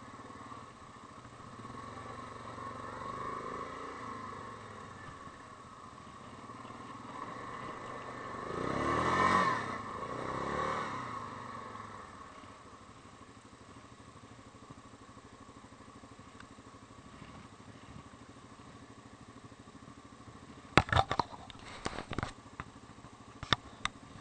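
Yamaha Grizzly 550 ATV's single-cylinder engine running as the quad rolls slowly, then idling steadily once stopped. About nine seconds in, a louder sound rises and falls away, like a vehicle passing close. Near the end, a quick cluster of sharp clicks and knocks from the camera being handled.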